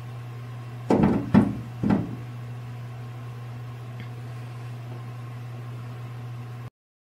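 Three loud knocks about half a second apart, over a steady low hum.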